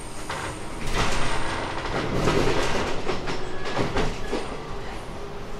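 Running sound of a JR East 719-series electric multiple unit heard from on board: steady rolling wheel-and-track noise with a few sharp clicks. It grows louder about a second in.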